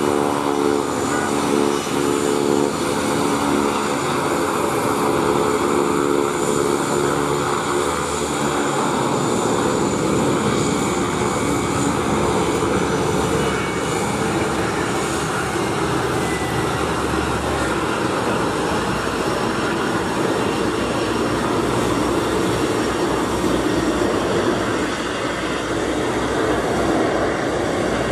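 Turboprop aircraft engines and propellers running on the ground. There is a steady pitched drone for roughly the first eight seconds, after which a broader, steady rushing engine noise takes over.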